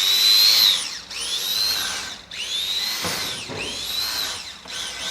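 A small high-speed power tool run in five short bursts of about a second each, its whine rising and falling with each burst as it spins up and winds down.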